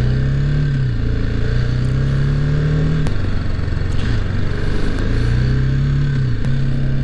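Motorcycle engine pulling through the gears while riding. Its pitch climbs and drops back several times at the shifts, over steady wind and road noise.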